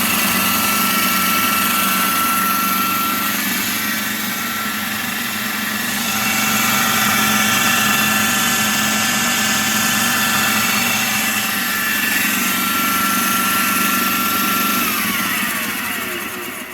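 Homemade belt grinder powered by a washing-machine motor, running steadily with a whine over a rushing belt noise. About fifteen seconds in it is switched off and winds down, the whine falling in pitch until it stops.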